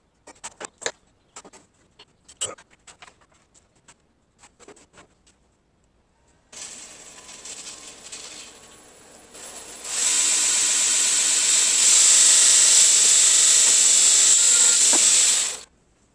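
Light clicks and knocks of metal parts being handled, then a power tool starts about six seconds in. It runs steadily, gets much louder with a high whine about ten seconds in, and cuts off suddenly near the end.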